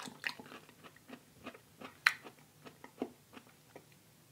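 A person chewing a first bite of raw aloe vera close to the microphone: irregular wet mouth smacks and clicks, with one louder smack about two seconds in.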